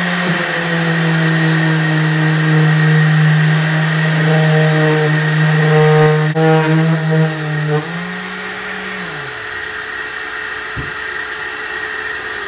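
Hyper Tough 2.5-amp 5-inch random orbital sander running hard against a rough pallet board, holding its speed without bogging down. About eight seconds in, it is lifted off the wood and its pitch steps up. It then winds down with a falling hum, while a fainter steady hum carries on.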